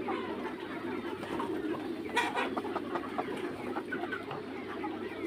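A flock of young Mía chickens making short, scattered clucks and peeps over a steady low background hum, with one brief, sharper sound about two seconds in.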